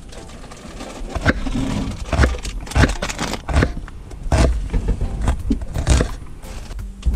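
Chef's knife chopping a red onion on a wooden cutting board: an uneven run of sharp knocks of the blade on the board, about one to two a second, with lighter cuts between.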